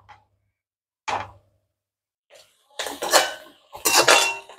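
Metal perforated ladle scraping and clinking against a cast-iron wok as vegetables are stir-fried: a short scrape about a second in, then longer scraping strokes with a metallic ring around three and four seconds in.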